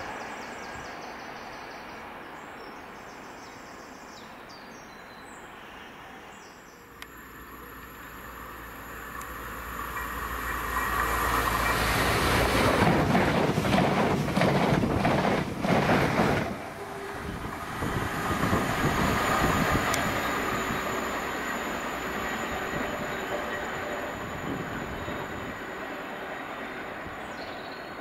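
Steam-hauled passenger train led by LMS Royal Scot class 4-6-0 No. 46100 passing by. The sound builds over several seconds to a loud peak, drops suddenly about two-thirds of the way through, swells briefly again as the train runs on, and then fades slowly.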